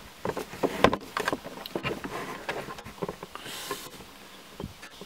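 Irregular light clicks and taps of a handheld camera being handled and adjusted, with a short rustle about three and a half seconds in.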